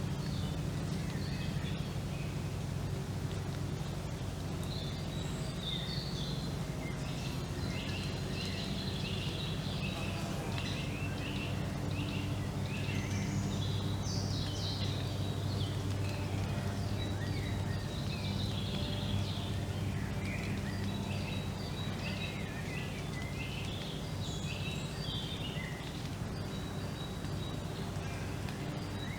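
Several songbirds chirping and singing in a forest, short calls overlapping throughout, over a steady low hum in the background.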